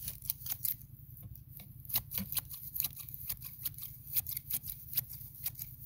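Long-handled grass shears snipping through grass and weeds: a quick, irregular run of sharp blade snips, several a second.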